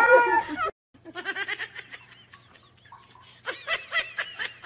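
A cat meowing loudly in drawn-out cries that bend up and down in pitch, cut off abruptly under a second in. After a short gap come fainter, choppy voice-like sounds that sound like laughter.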